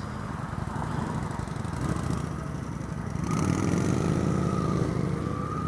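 Suzuki GW250 motorcycle's parallel-twin engine running, its note rising and getting louder about three seconds in as the bike accelerates.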